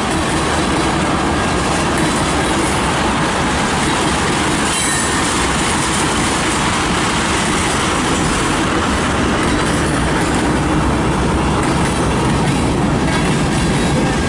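Freight train's cars rolling past, a steady loud rumble and rattle of wheels on the rails.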